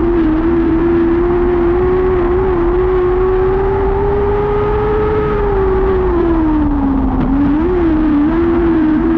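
Lightning sprint car engine running hard in a dirt-track race. Its pitch rises slowly, dips about seven seconds in as the driver lifts off, then picks back up.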